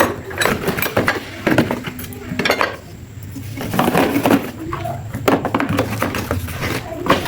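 Metal clinking and clattering: many short, irregular strikes of hard metal objects knocking together as they are handled.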